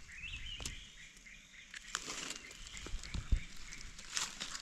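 Dry leaf litter crackling and rustling in scattered clicks as a knife and gloved hand dig through it to cut out a mushroom, with faint bird chirps in the first couple of seconds.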